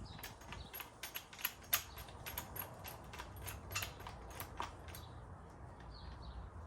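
Irregular light clicks and taps from hand work on the quad's steering and handlebar parts. They come thick and fast, then thin out about five seconds in.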